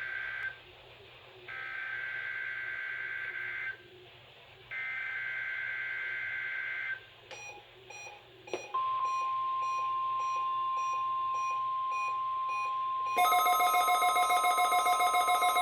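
NOAA Weather Radio weekly test. The end of one burst and two more bursts of the SAME digital header, a rough two-tone data screech each about two seconds long with a second's gap between, are followed about nine seconds in by the steady 1050 Hz warning alarm tone. About thirteen seconds in, a louder, fast-pulsing alarm with many tones joins over the steady tone.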